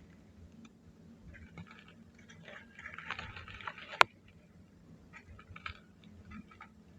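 Soft charcoal ash crumbling and crunching: scattered small crackles, thickest about three seconds in, with one sharp snap just after four seconds that is the loudest sound.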